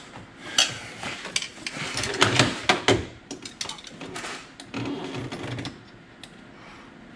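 Hose clamps being tightened by hand on the oil catch can's fuel-line hoses: irregular clicks, knocks and rustling of hose and fittings, busiest about two to three seconds in and settling down near the end.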